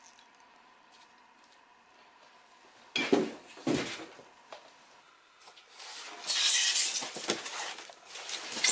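Quiet at first, then clinks and knocks of small metal bike-frame parts being handled from about three seconds in, with a stretch of rustling about six seconds in.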